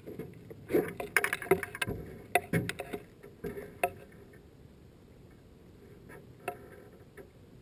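A run of sharp knocks and clicks, with gear and hands bumping around inside a fishing boat, clustered over the first four seconds with one more knock near the end, then only a faint background hush.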